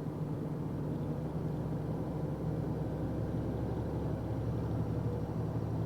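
Box truck's engine running with a steady low drone, heard from inside the cab.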